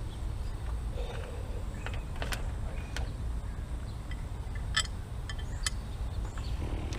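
A handful of short, light clicks and taps, as tools and bracket hardware are handled, scattered over a steady low rumble.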